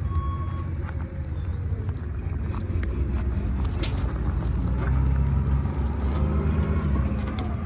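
A large vehicle's engine running, a steady low rumble whose note rises about five seconds in; its reversing beeper sounds once at the start.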